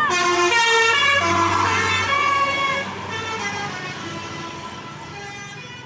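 Bus 'telolet' horn, a set of air-horn trumpets, playing a quick tune of held notes that step up and down. It is loud for about the first three seconds, then goes on more faintly.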